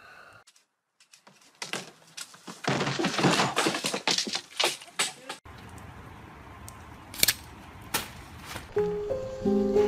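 A dense run of sharp cracking and crackling, like tree branches snapping and rustling. It stops suddenly and gives way to a steady hiss of rain with two sharp clicks. Short musical notes start near the end.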